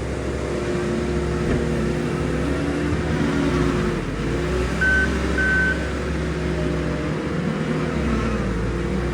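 New Holland C362 skid steer's diesel engine running steadily while working, its note shifting a little about three to four seconds in. Its reverse alarm beeps twice about five seconds in.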